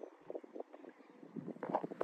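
Water lapping and splashing softly and irregularly against a kayak on open water, with light wind on the microphone.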